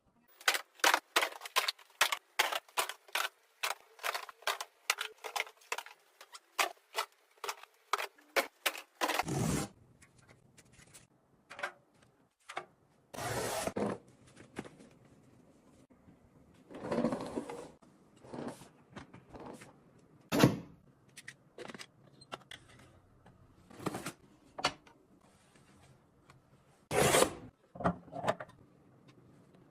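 Packaging and a small product being handled and unpacked by hand: a quick run of sharp crinkles and clicks, several a second, for about nine seconds, then scattered rubbing, scraping and a few knocks.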